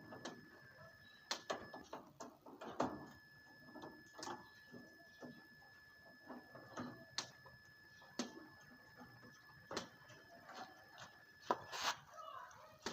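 Hand tools working on an air-conditioner unit while the old compressor is being taken out: scattered clicks, taps and knocks at irregular intervals, with a faint steady high tone underneath.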